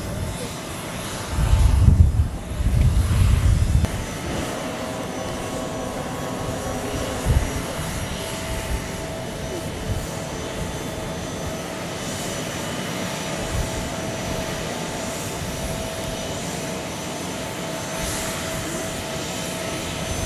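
Steady aircraft running noise on an airfield ramp, with a constant whining tone. A couple of seconds of low rumbling gusts come near the start.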